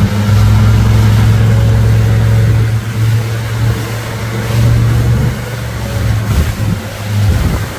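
Suzuki 150 hp outboard motor running steadily under load while towing, a strong low drone over the rush of its churning wake. It gets a little quieter from about three seconds in.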